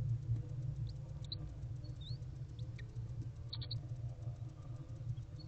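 Steady low hum of the owl box camera's sound feed, with a few faint, short high chirps scattered through it, about four times.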